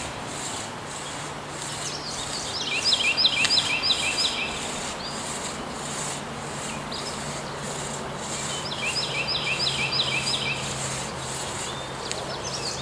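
A songbird singing a fast run of repeated short phrases, twice, each run lasting about two seconds, over a faint high hiss that pulses about twice a second and a steady low hum.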